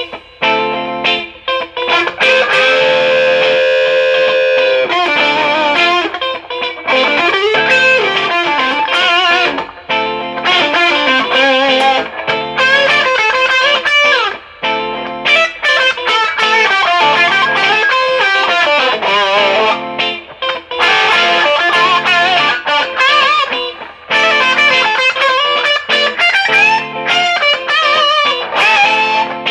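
Gibson R9 Les Paul electric guitar with Wolfetone Marshallhead humbuckers, through a Marshall DSL-1 amp, played as a lightly overdriven lead. It plays single-note phrases with string bends and wide vibrato on the held notes, with brief gaps between phrases.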